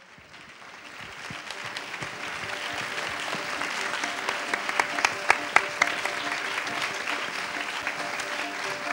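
A large audience applauding, fading in over the first couple of seconds, with a few sharper single claps standing out around the middle.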